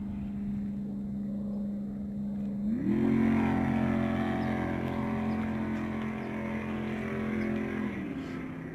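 Boat engine running steadily, then revving up to a higher pitch about three seconds in, holding there, and dropping back near the end.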